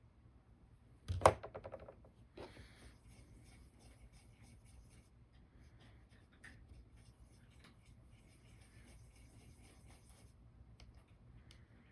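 Paintbrush rubbing and scratching in light strokes as a thin acrylic wash is worked into a model's mortar joints. There is a sharp clink with a short rattle about a second in.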